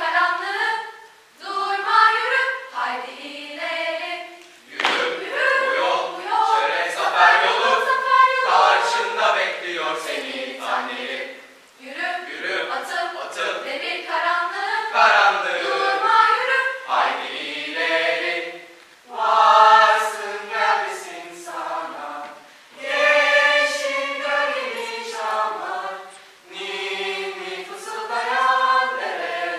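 Mixed choir of teenage students singing a cappella, in phrases separated by short pauses.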